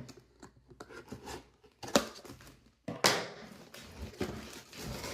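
Packs of frozen meat being handled and set down in a box: light clicks and knocks, a sharp knock about two seconds in, then plastic rustling and crinkling from about three seconds in.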